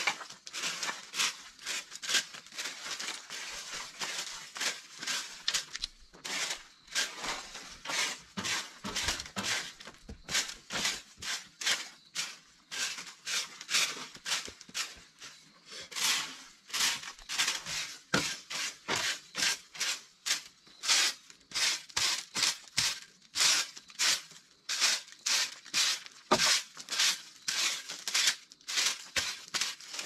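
Straw broom sweeping dry leaves, twigs and loose dirt across packed earth: quick, repeated scratchy strokes that keep on steadily.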